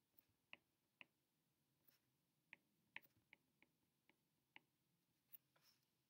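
Faint, irregular clicks of a stylus tip tapping on a tablet's glass screen during handwriting, about ten short ticks over a few seconds against near silence.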